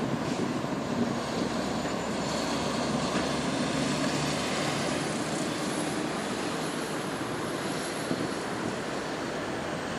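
Road traffic going by close on a city street: a container lorry and then a car pass over a steady roar, with a faint high whine rising and falling through the middle.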